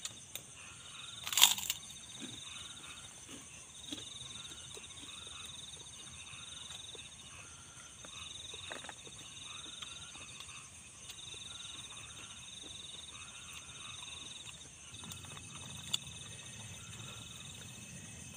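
Night-time insect chorus: a steady high-pitched chirring that swells and fades in spells of a few seconds. A single sharp click sounds about a second and a half in, with a few faint knocks of eating from plates here and there.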